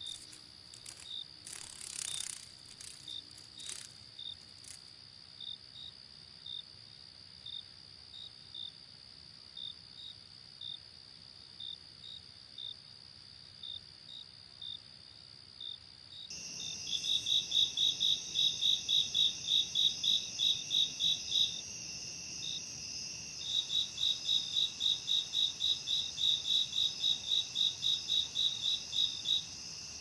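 Singing insects: a steady high-pitched drone with short chirps about one or two a second. About halfway it changes to a louder track of rapid chirps, about four a second, in two long runs with a short pause between.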